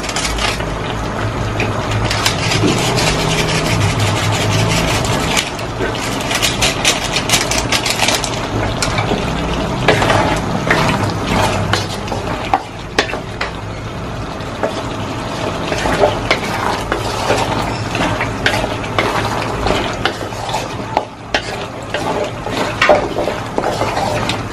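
Wooden spatula stirring and scraping diced pork and vegetables in a metal wok, with many short scrapes and knocks against the pan over a low sizzle of the cooking food.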